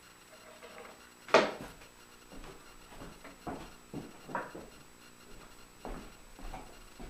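A wooden jig piece set down with one sharp knock on the metal saw table, followed by several softer knocks and clatters of workshop handling.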